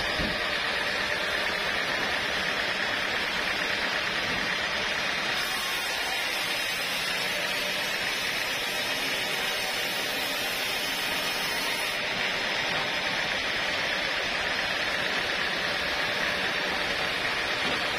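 Sawmill machinery running steadily, a continuous noisy drone with a faint steady whine; the hiss grows brighter for a few seconds in the middle.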